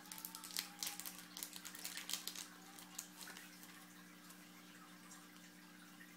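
Crinkling and light clicks of trading cards and their foil pack wrapper being handled, a quick flurry of crisp crackles in the first three seconds that then dies down. A steady low electrical hum runs underneath.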